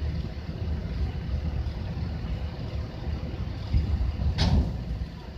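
Heavy truck engine running with a steady low rumble, with a short sharp burst of noise about four and a half seconds in.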